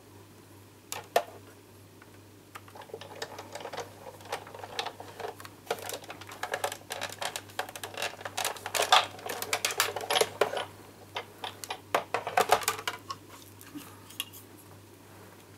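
Sizzix Big Shot die-cutting machine being hand-cranked, the plate sandwich with magnetic platform and metal dies rolling through the rollers with an uneven run of clicks and knocks for about twelve seconds. The clicks are loudest a little over halfway through and again near the end.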